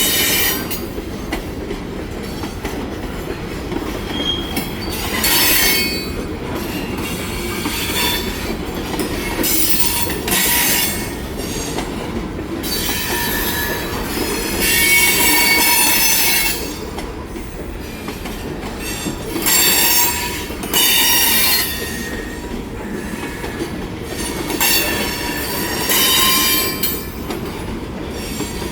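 Railway cars rolling past at close range: a steady rumble of wheels on rail, broken by repeated bursts of high-pitched wheel squeal every few seconds.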